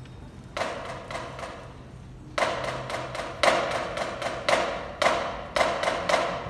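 Drumline playing: a burst of rapid drum strokes about half a second in, a pause, then from about two seconds in a string of accented phrases about once a second, each striking hard and dying away.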